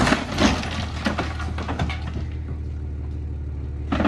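Low, steady engine hum of a slowly moving vehicle, with a few scattered knocks and rattles.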